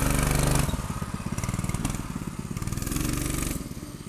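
Predator 212cc single-cylinder four-stroke engine on a minibike revving as the bike pulls away: a hard rev at the start, a second rise in revs a couple of seconds later, then the sound fading as the bike moves off.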